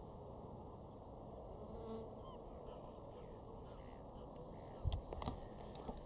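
Flying insects buzzing faintly in the open air, with a few sharp clicks near the end.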